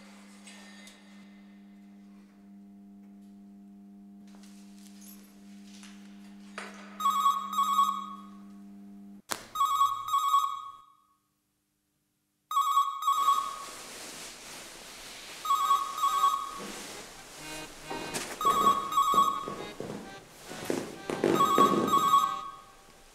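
A telephone ringing with an electronic trilling ring, about six short double rings repeating every two to three seconds, beginning about seven seconds in. Before the rings a sustained music chord plays, and under the later rings there is rustling movement.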